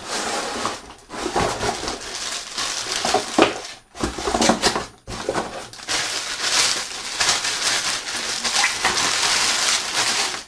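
Packaging being handled and pulled open: rustling and crackling in uneven spells, with brief pauses about one, four and five seconds in.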